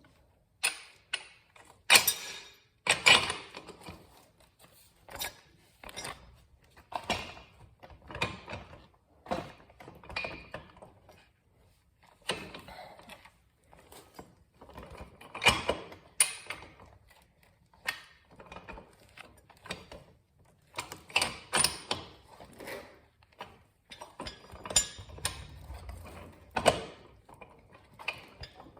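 Irregular metallic knocks, clicks and clanks of a motorcycle's rear wheel assembly being worked into place by hand.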